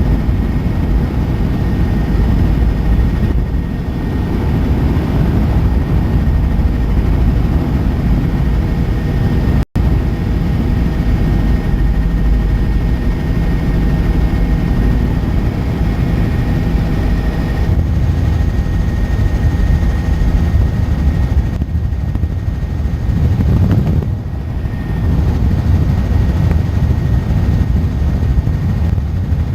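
Helicopter in flight: a loud, steady drone of engine and rotor, with a thin high whine on top. It cuts out for an instant just under ten seconds in.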